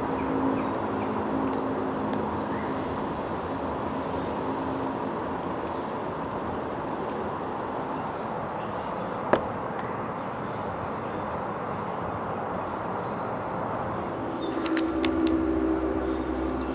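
Steady outdoor background noise, an even hiss-like hum with no clear rhythm. A single sharp click comes about nine seconds in, and a few short clicks with a low hum near the end.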